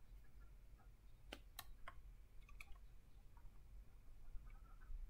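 A few faint, sharp clicks, four of them spread through the first half, over a low steady hum.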